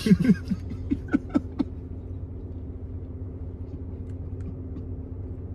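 Laughter in short fading bursts for the first second and a half, then a steady low hum with a constant low tone inside the car, its engine idling.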